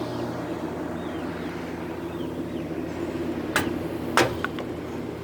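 Steady hum of an electric fan, with two sharp clicks a little over half a second apart past the middle.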